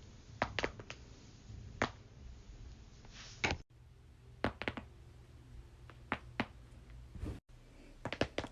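Neck joints cracking during chiropractic adjustments: a series of short, sharp pops, several coming in quick pairs or triples.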